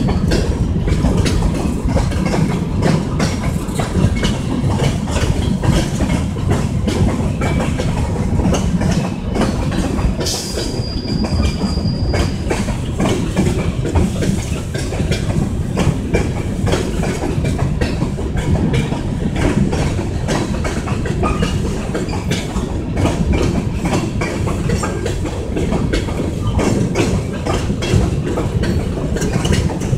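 Kansas City Southern de México freight train's cars rolling past: a steady heavy rumble with rapid, continuous wheel clicks over the rail joints. About ten seconds in, a high squeal is held for about two seconds.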